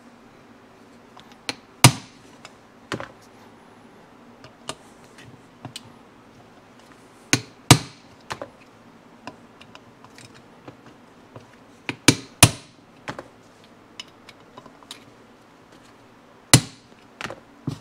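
Hammer tapping a cylindrical driver to seat a press-fit part in an aluminium motorcycle crankcase half. It gives a dozen or so sharp taps, irregularly spaced, some in quick pairs.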